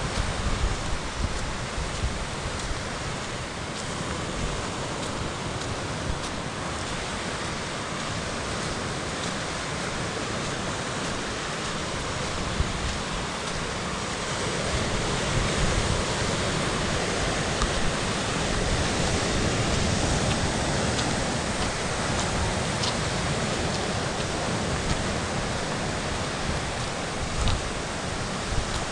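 Sea surf washing steadily onto a rocky shore, with wind gusting over the microphone.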